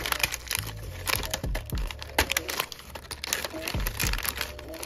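Plastic toy packaging crinkling and crackling in irregular rustles as sealed accessory packets and a clear plastic blister tray are handled and pulled out of a cardboard doll box.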